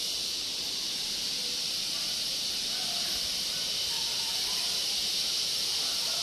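Steady, high-pitched drone of an insect chorus in tropical woodland, unbroken throughout.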